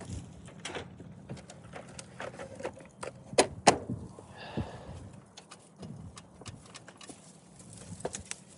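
Scattered clicks and clinks of hand tools and small car parts being handled, with two sharp clicks close together about three and a half seconds in.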